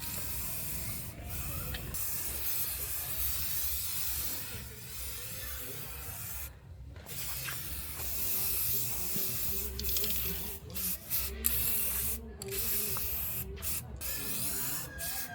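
Spray painting: a steady hiss of paint spraying that stops and restarts several times, most often in the second half, over a low hum.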